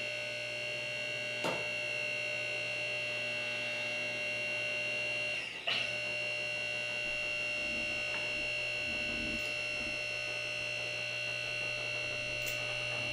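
Electric hydraulic pump unit of a Central Hydraulics 6000 lb scissor lift running as it raises the lift: a steady hum with a high whine over it. The sound cuts out briefly with a click about halfway through, then carries on.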